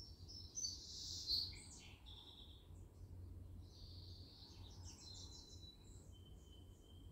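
Several wild birds calling and singing, faint overall, with a cluster of chirps loudest about a second in and a thin high whistled note held for about a second near the end. A low steady rumble runs underneath.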